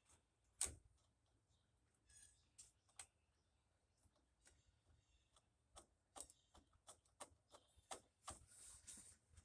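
Faint, irregular clicks and light taps of a chainsaw chain and its sharpener being handled and set up, no grinding. The loudest click is about half a second in, and they come more often in the last few seconds.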